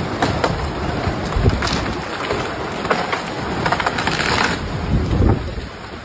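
Storm-force wind gusting hard, buffeting the phone's microphone: a loud rushing noise that swells and eases.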